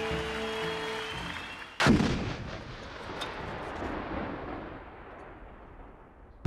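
Soundtrack music with held notes, cut off about two seconds in by a single loud blast of gunfire whose rumble slowly dies away over the next four seconds.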